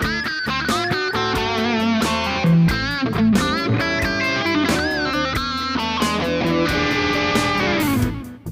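Distorted lead electric guitar, an Ibanez Jem through a Kemper profiler's Marshall 1959 SLP plexi profile, playing fast runs with string bends and vibrato over a steady beat, ending with a long slide down before cutting off near the end.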